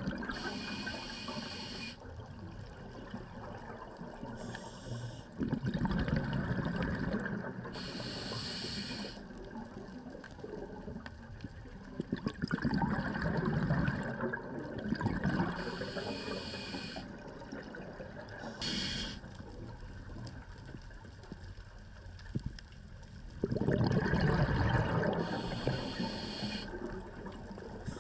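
Scuba diver breathing through a regulator underwater: spells of hissing inhalation alternate with rushing, bubbling exhalations, three of them much louder than the rest.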